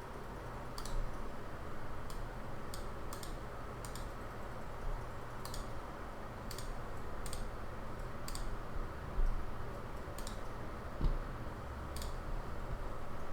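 Computer mouse and keyboard clicking in scattered, irregular single clicks, roughly one a second, over a steady hiss of white noise.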